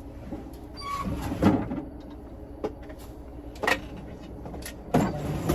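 Several knocks and clatters of a cupboard door or drawer being opened and handled, the loudest about a second in, another a little past the middle, and a cluster near the end.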